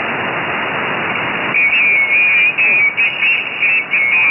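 Single-sideband receiver hiss from the QO-100 satellite downlink; about a second and a half in, a high whistling tone from another signal on the frequency cuts in, breaking on and off, and the hiss drops under it.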